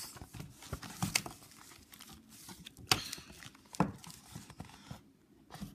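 Paper rustling and handling noise, as from the pages of a picture book being handled. There are a few sharp clicks: about a second in, a louder one near three seconds, and another near four seconds.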